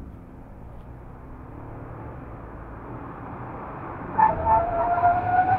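Car driving on a test track: steady road and wind noise, slowly building, joined about four seconds in by a rising whine.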